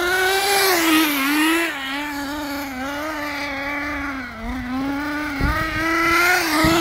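Small nitro engine of a RedCat Tornado RC car running during break-in on its first tanks of fuel: a steady, buzzing engine note that wavers slightly in pitch and dips briefly about four and a half seconds in.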